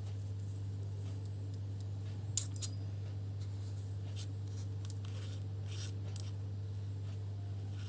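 A few light, scattered clicks of small mic parts being handled, over a steady low hum.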